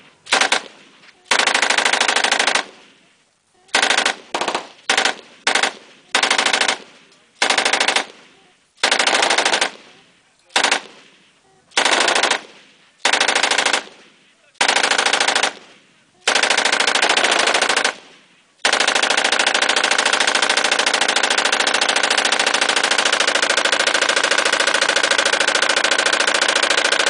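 Belt-fed machine gun on a tripod firing about fifteen short bursts of automatic fire. About two-thirds of the way through it opens into one long, unbroken burst that runs on past the end.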